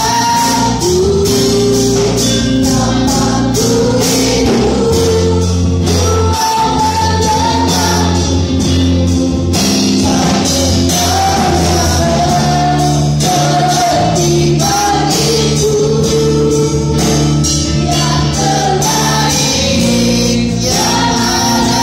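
Christian worship song with singing over a band: a sung melody of long held notes over a steady bass line and an even beat.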